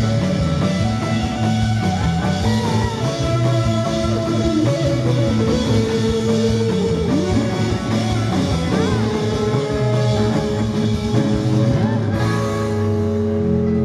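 Rock band playing live: electric bass, electric guitar and drum kit, heard from within the audience.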